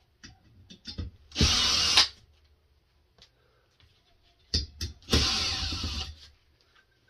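Cordless drill-driver running in two short bursts, about a second and a half in and again about five seconds in, backing out the screws that hold a ceiling fan's shroud. A few faint clicks come just before each burst.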